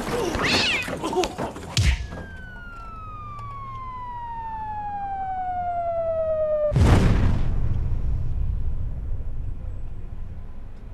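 A cartoon falling-whistle sound effect: one tone glides slowly down in pitch and grows louder for about five seconds. It ends in a sudden heavy crash with a rumbling tail as a man lands in a metal dumpster. A loud burst of noise fills the first two seconds.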